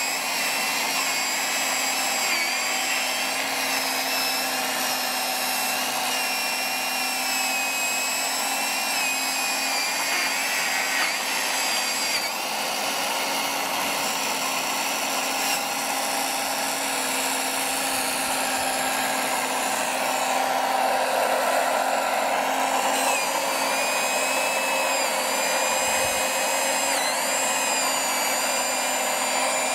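Small electric motor of a model Wood-Cutter 650 saw head on an RC excavator running steadily while cutting a log, its whine dipping briefly in pitch several times as the blade takes load.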